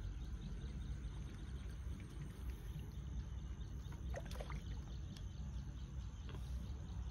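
Faint sloshing and trickling of shallow river water stirred by a wader and a net pole, over a low steady rumble. A few faint short chirps come about four seconds in.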